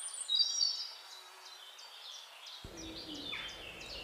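Small birds singing and chirping: a run of quick, repeated high chirps with a few longer whistled notes. About two and a half seconds in, a faint low background noise comes in suddenly.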